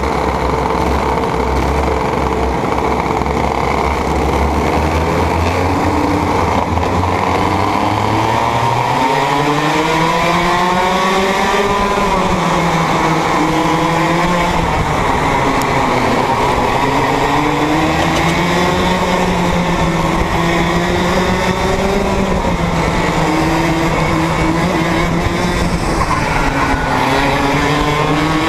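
Two-stroke racing kart engine heard onboard. It runs at low revs for about the first eight seconds, then the revs climb and keep rising and falling as the kart accelerates and slows.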